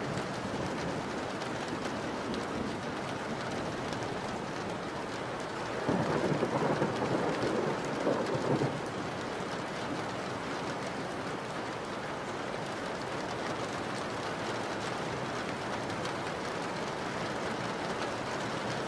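Heavy rain falling steadily, with a roll of thunder that breaks in sharply about six seconds in and dies away within about three seconds.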